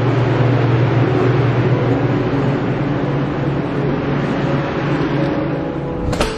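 A loud, steady machine running, with a low hum under a dense rushing noise. It stops with a sharp click near the end.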